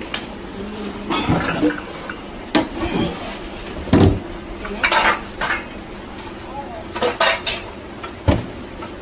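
Household things being moved and handled: scattered knocks, clatters and rustling as pillows, bedding and stored items are shifted about, with a heavier knock about four seconds in.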